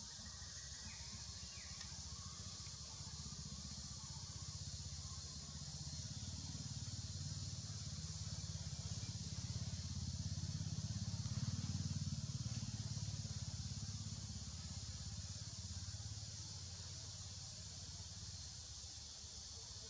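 Low rumble of a distant motor vehicle engine, swelling to its loudest about halfway through and then fading, as if passing by, over a steady high-pitched hiss.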